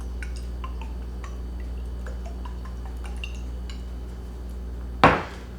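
Hot sauce dripping in small drops from a shaken bottle onto chili, many separate little plops. About five seconds in there is one sudden louder knock.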